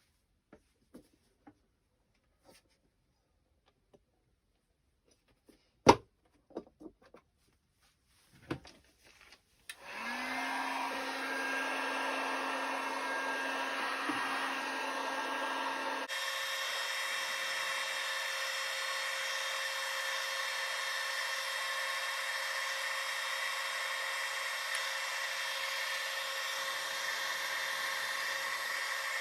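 A few handling knocks and clicks, the sharpest about six seconds in. Then, about ten seconds in, an electric hot-air blower switches on and runs steadily, warming the new tire's rubber so it will stretch over the rim. Its tone shifts about sixteen seconds in, as if the setting was changed.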